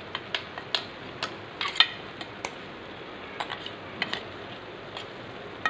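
Steel spoon clinking and tapping against a stainless-steel jar and a steel kadai as ground spice powder is scraped out into the pan. The clinks are sharp and irregular, about a dozen, sometimes two in quick succession.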